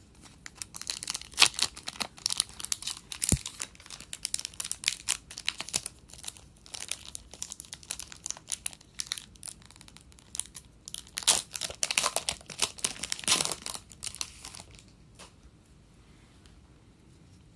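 Plastic wrapper of a 2019-20 Upper Deck Series 1 hockey card pack crinkling and tearing as it is opened, a dense crackle that stops a few seconds before the end.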